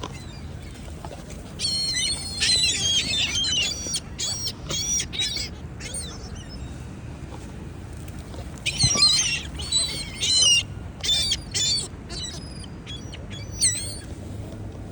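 A crowd of gulls calling and squawking over one another as they compete for food being thrown to them. The calls come in two busy bursts, with scattered single cries in between.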